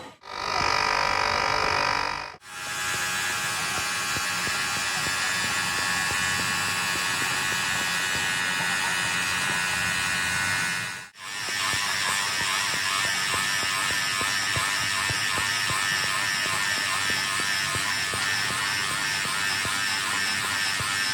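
Workshop machinery with electric motors running steadily, a constant whine over a hum. It comes in three stretches separated by brief dropouts, and the last stretch has an even, fast pulsing.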